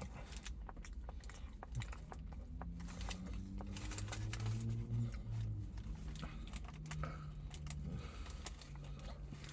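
Close-up chewing of a tortilla wrap, with many wet mouth clicks and smacks, over a low wavering hum that is loudest around the middle.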